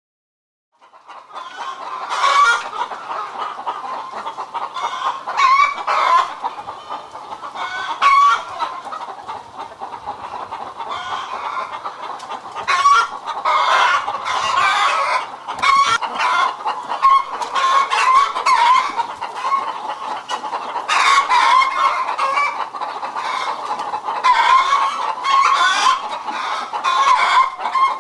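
A flock of hens clucking continuously in many overlapping calls, starting about a second in, with louder calls standing out every few seconds.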